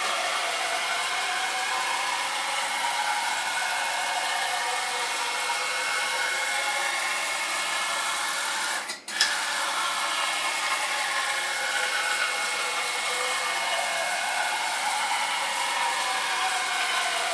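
Stepper-motor-driven X axis of a homemade steel CNC router on its first run: a motor whine that rises and falls in pitch as the carriage speeds up and slows down. About nine seconds in it stops briefly with a click, then starts again.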